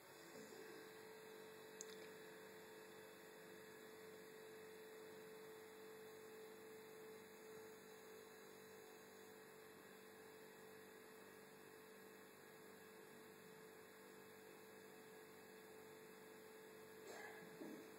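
Near silence: a steady electrical hum with faint hiss, and one faint click about two seconds in.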